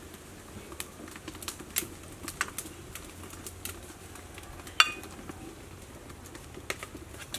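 Wood fires crackling faintly under the cooking pots, with scattered light clicks and a sharp metal clink about five seconds in as palm sugar is spooned into the metal pot. Faint bird calls sound in the background.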